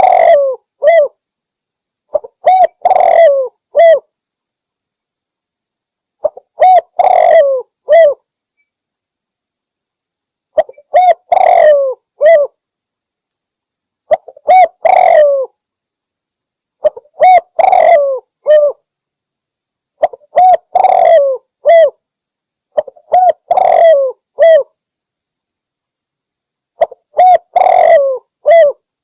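Spotted dove (Javanese derkuku) cooing: phrases of several low coos, each phrase lasting a second or two and repeated about every three to four seconds, with silence between.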